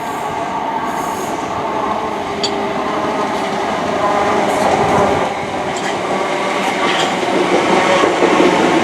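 Train running along the tracks below, growing steadily louder as it approaches, with a steady mechanical hum and a few sharp clicks from the wheels.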